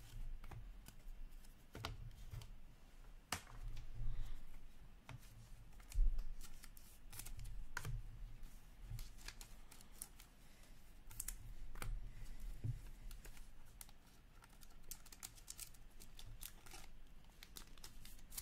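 Trading cards being handled and slipped into clear plastic card sleeves: scattered light clicks and crinkles of plastic, with irregular soft thumps from hands and cards against the table.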